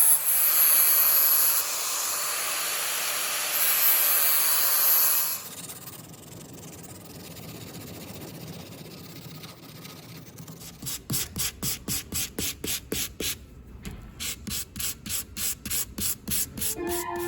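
Abrasive work on a steel knife blade: a loud, steady grinding hiss for about five seconds, then a quieter stretch, then quick, even rubbing strokes in a steady back-and-forth rhythm.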